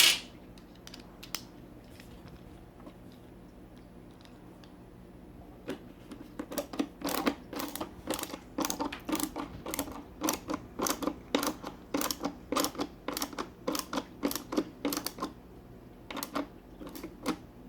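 A screwdriver driving in the last screw of a reassembled AMC Navigenio housing: a sharp click at the start, then after a few quiet seconds a long run of quick, uneven clicks and knocks, about two or three a second, with a few more near the end.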